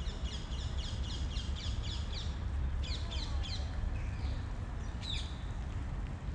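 Small birds chirping: quick runs of short, high, sharp notes for the first two and a half seconds and again briefly about three seconds in, with one falling call near five seconds, over a steady low rumble.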